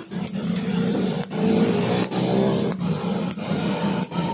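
A hammer strikes a chisel held against the side of an old auto-rickshaw radiator core, about six sharp metal knocks a little under a second apart. A steady low roar runs underneath.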